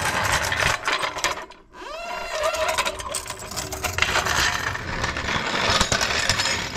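Floor jacks rolled and pushed across a garage door threshold on concrete, their metal frames and wheels clattering and rattling with sharp clunks, and a brief squeak a couple of seconds in. A short break about a second and a half in splits two passes.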